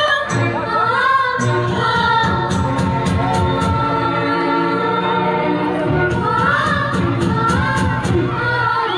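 Music with singing: held, sliding vocal lines over sustained instrumental tones, with a steady percussive beat.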